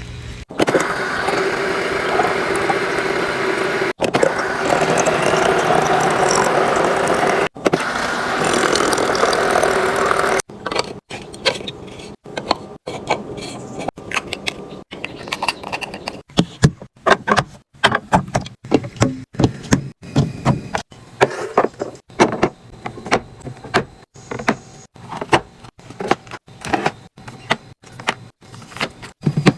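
Restocking sounds: for about ten seconds a steady rushing noise with two abrupt cuts, then a long run of quick clicks, taps and clatters as drinks and packaged snacks are handled and set into a mini fridge.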